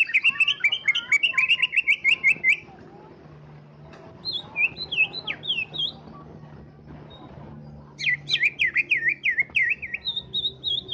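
Caged cucak ijo (greater green leafbird) singing: loud phrases of quick, high chirping notes. The first is a long run at the start; shorter phrases follow about four, eight and ten seconds in, with pauses between.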